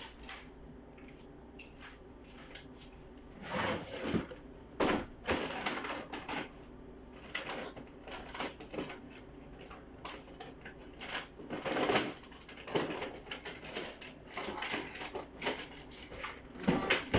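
Kitchen handling noises: irregular clinks, knocks and clatter of containers and utensils on a counter, over a faint steady hum.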